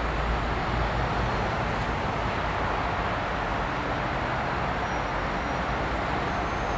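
Steady, even rumble and hiss of a distant approaching freight train hauled by a Bombardier TRAXX (E 186) electric locomotive, with no distinct tones.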